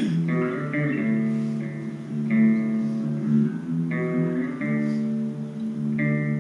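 Solo guitar licks: picked notes and chords ringing out in short phrases, with a bent note about a second in.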